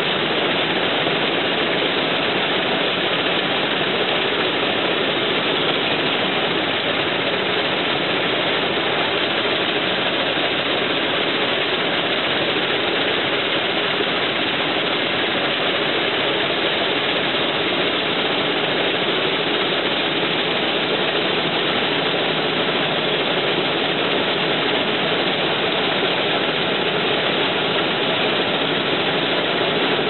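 Claas combine harvester running steadily while cutting rice: engine, reel and header machinery giving one even, unchanging mechanical noise.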